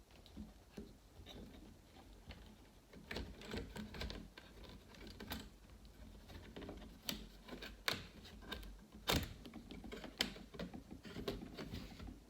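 Irregular light clicks and taps of plastic and metal as a replacement laptop LCD panel is tucked and seated into the lid's frame, with one sharper click about nine seconds in.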